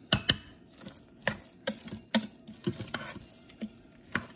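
A metal spoon stirring chicken and rice in a stainless steel Instant Pot inner pot, clinking against the pot in a series of irregularly spaced sharp clicks, the loudest two right at the start.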